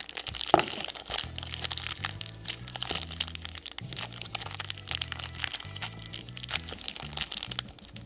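Plastic toy packaging crinkling and crackling as it is handled and torn open, over background music with a steady low beat.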